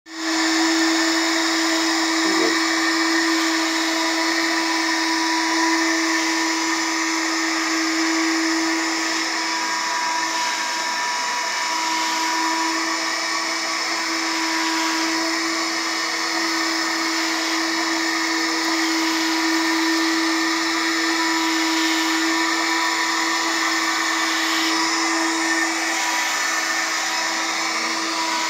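Twin-pad robotic window cleaner running, its suction fan giving a steady hum and a hiss of air as it clings to and crawls over glass.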